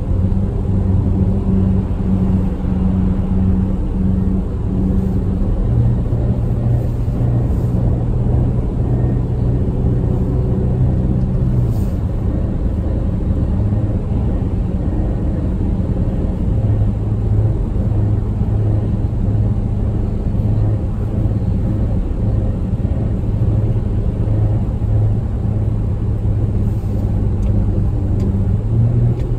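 Engine and tyre noise of a car at highway speed, heard inside the cabin: a steady low drone over road rumble, its pitch stepping up about six seconds in, dropping back near the middle, and rising again shortly after.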